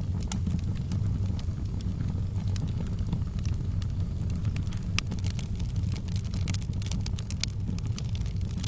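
Wood fire burning in a fireplace: sharp crackles and pops scattered over a steady low rumble, coming thicker and closer together in the second half.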